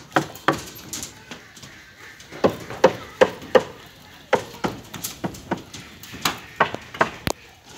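Metallic knocks of a hammer striking steel reinforcing bars, in quick runs of about three blows a second, each with a brief ring.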